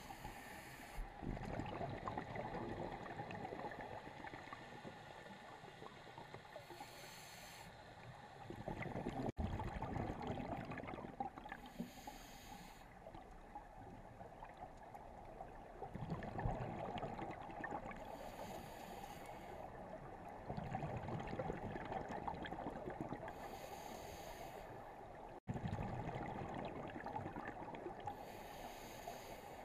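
Scuba regulator breathing underwater: a hissing inhale through the regulator about every five or six seconds, each followed by a low rumbling burst of exhaled bubbles.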